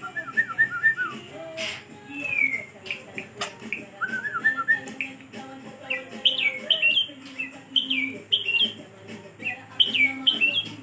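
White-rumped shama (murai batu) calling in aggressive display: quick runs of short chattering notes, then from about six seconds in, repeated sharp downslurred notes. A few sharp clicks, finger snaps, come in the first few seconds.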